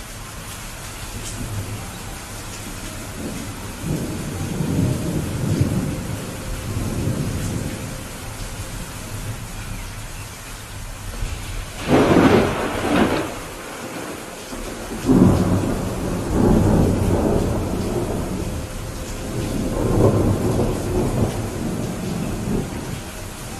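Steady rain with thunder. Low rolling rumbles come a few seconds in, a sharper, louder thunderclap about halfway through, and more rumbles after it.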